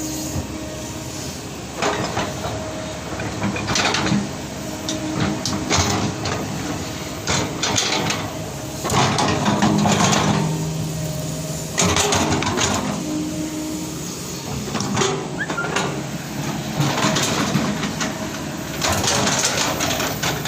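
Heavy earthmoving machinery at work: a steady diesel engine drone under repeated harsh clattering bursts every couple of seconds, loudest about nine to eleven seconds in.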